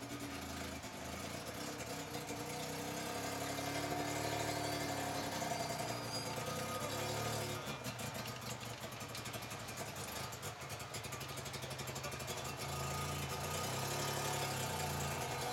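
Vehicle engine running at low revs, its pitch rising and falling in slow surges.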